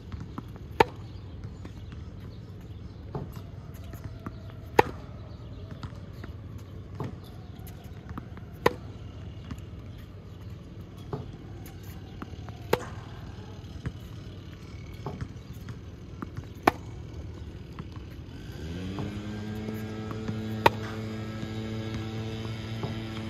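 Sharp knocks about every four seconds, with fainter clicks between them, over a low hum; near the end a motor spins up and settles to a steady hum.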